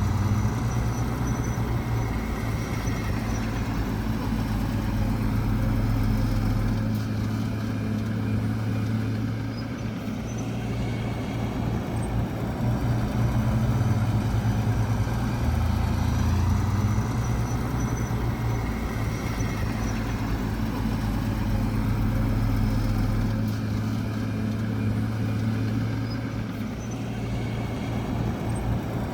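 Heavy diesel engine of earthmoving machinery running steadily, its low note stepping up and down in pitch several times.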